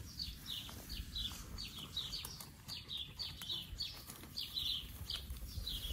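Small birds chirping over and over: short, high, downward-sliding chirps, several a second, over a faint low rumble.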